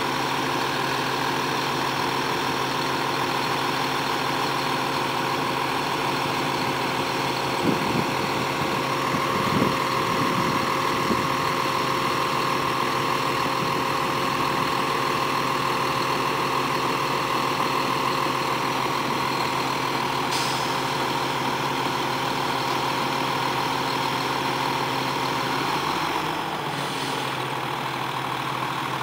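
Heavy diesel truck engines running steadily at idle, with a few short knocks about a third of the way in; one steady tone in the engine hum drops out near the end.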